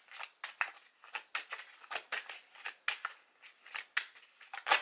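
Tarot deck being shuffled in the hands: a quick, irregular run of card snaps and slaps, about four a second, with a louder slap near the end.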